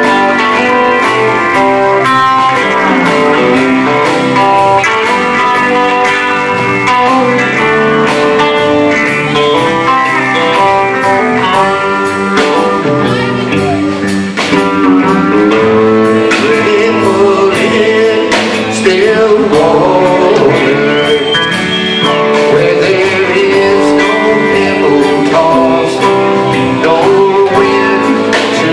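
Live country-rock band playing an instrumental break: electric guitars and pedal steel guitar over bass and drums, with lead lines that bend and slide between notes.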